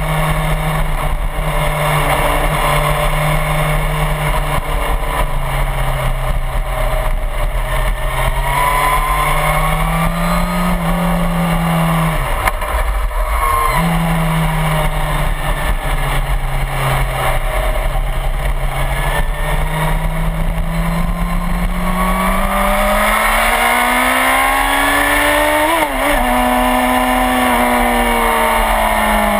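Suzuki GSX-R1000's inline-four engine running hard around a race track, over steady wind noise. The engine note drops sharply and comes straight back a little before halfway, then climbs steadily through the last third, with a quick break near the end as it eases off.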